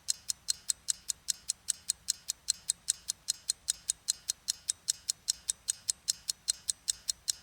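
Clock-ticking countdown timer sound effect: a steady, sharp tick about four times a second, marking the time allowed to answer a quiz question.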